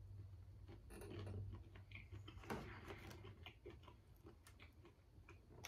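Faint, irregular clicks and crackles of boiled shrimp shells being peeled apart by hand, with quiet chewing, over a low steady hum.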